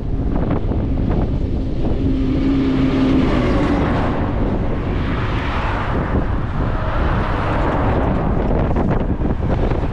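Steady wind rumble on the microphone of a camera riding on a moving bicycle. A vehicle passes in the middle, its noise swelling and fading.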